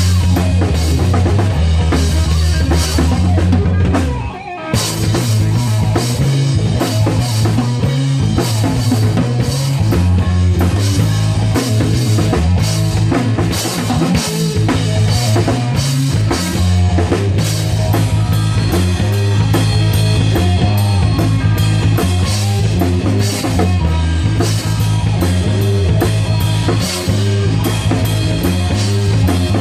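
Instrumental rock played by a band on a Ludwig drum kit, electric bass and electric guitar. The music stops for a moment about four seconds in, then the full band comes back in with driving drums.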